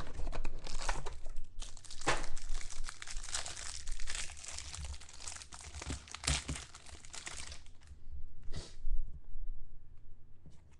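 Wrapper of a 2013 Prominence football card pack being torn open and crinkled by hand, a dense crackling rustle that stops about eight seconds in, with one more brief rustle shortly after.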